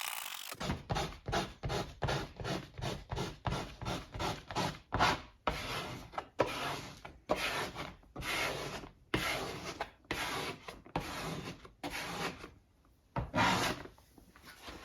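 Repeated rubbing strokes of a squeegee-style installation tool pressed across a vinyl decal on a car's rear window glass, working it down flat. The strokes come quickly at first, about two to three a second, then grow longer and slower, with a brief pause near the end.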